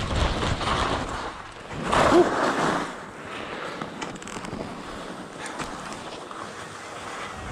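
Skis scraping and sliding over packed snow in two louder swells during the first few seconds, then a steady rush of wind on the microphone as the skier stands still.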